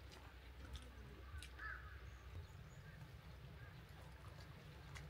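Quiet outdoor ambience: a steady low rumble with a few faint clicks, and one brief faint call about one and a half seconds in.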